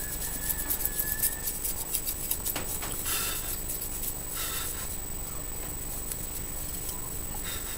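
Small paintbrush bristles scratching over a hard disk drive, brushing off dust in quick strokes. The strokes are dense for the first three seconds, then come as a few softer sweeps.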